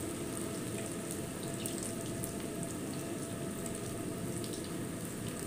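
Potato fingers deep-frying in hot ghee in a kadhai: a steady bubbling sizzle with small crackles.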